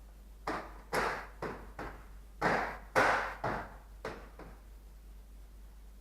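A quick run of about nine sharp knocks and snaps over some four seconds, the loudest near the middle, from parts on the truck's front being worked into place.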